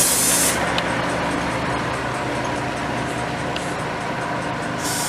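Railway inspection train running steadily with a low engine hum. A short burst of hissing comes right at the start and another near the end.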